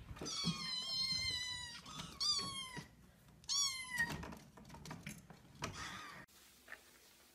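Kittens meowing: one long, high-pitched meow, then two shorter ones, each falling in pitch, and a fainter one near the end.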